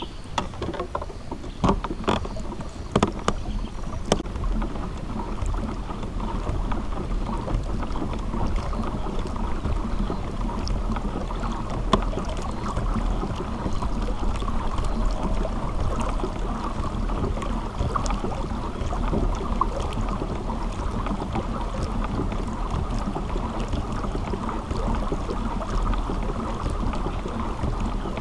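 Pedal-driven kayak under way: a steady rush of water along the hull, with a few sharp knocks in the first four seconds.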